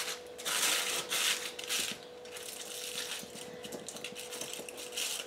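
Aluminium foil crinkling in several short bursts as it is folded over and pressed down on a meatloaf in a loaf tin.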